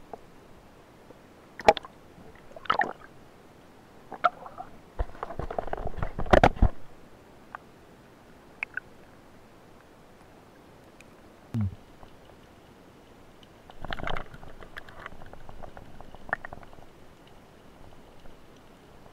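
Underwater noise picked up by a diver's camera as he swims and handles his gear and catch: scattered muffled knocks and clicks, a longer stretch of gurgling, rushing water about five to six and a half seconds in, and a dull low thud near the middle.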